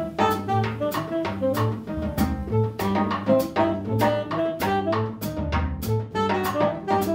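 Live small-group jazz: a tenor saxophone plays a moving melodic line over an upright bass and a drum kit, with regular crisp drum and cymbal strokes.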